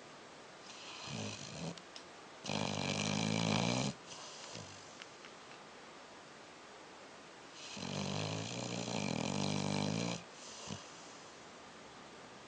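Sleeping Labrador snoring: a softer breath about a second in, then two loud snores about five seconds apart, the second one the longer.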